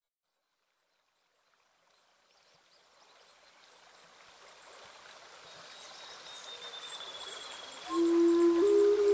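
Slideshow soundtrack fading in from silence: a stream-like water ambience with faint high chirps grows steadily louder, then held notes of new-age style music come in near the end.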